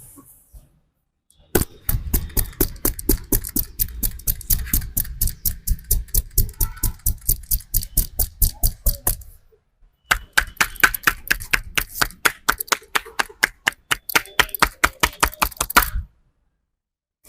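A barber's hands slapping in a fast percussive massage, about five strikes a second. The strikes come in two runs with a brief pause about ten seconds in.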